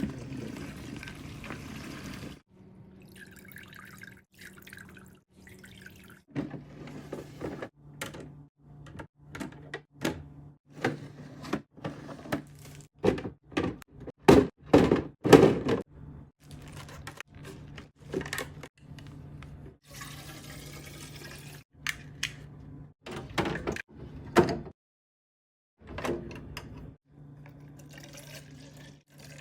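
Containers and bottles being set down and clacking against fridge shelves, with bursts of liquid being poured, over a steady low hum. The sound breaks off abruptly several times.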